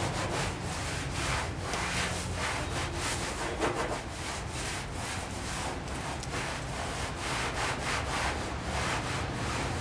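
Hand sanding on the painted steel tailgate of a 1959 Volkswagen Type 2 single cab: sandpaper rubbing in quick back-and-forth strokes, a few a second, taking off the over-paint to bring up the original lettering.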